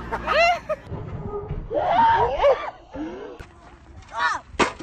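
Excited human voices shrieking and laughing in short outbursts without clear words, with a sharp knock near the end.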